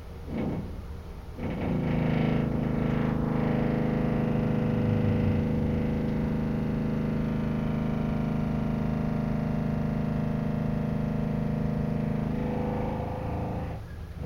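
A steady mechanical hum at a constant pitch starts about a second and a half in, runs unchanged, and cuts off shortly before the end.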